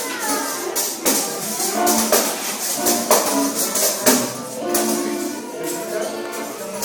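Tambourine jingles struck and shaken in rhythm over live band music with held melodic notes.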